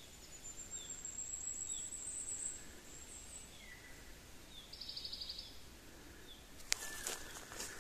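Faint birdsong over quiet woodland background: a thin high whistle, scattered short chirps and a brief rapid trill about five seconds in. A single sharp click sounds near the end.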